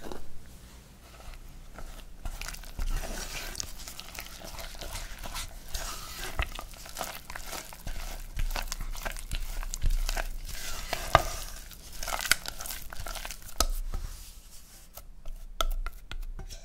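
Silicone spatula stirring tapioca starch and black cocoa powder into hot brown sugar syrup in a stainless steel pot: many small irregular clicks and scrapes as the starch is worked into a stiff dough.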